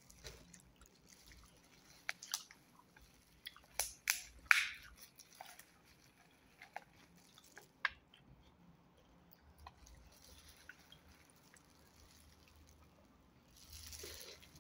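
A person chewing food close to the microphone, with scattered wet mouth smacks and clicks that are thickest in the first half. Near the end there is a longer, noisier bite into a handful of rice held in a plastic-gloved hand.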